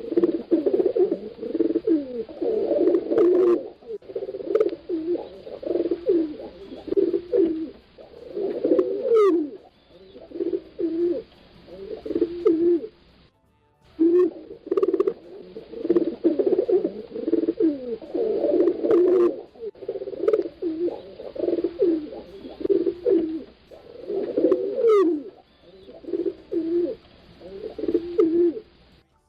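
Pigeons cooing over and over, several low coos overlapping in a steady run, with a brief gap of silence about 13 seconds in.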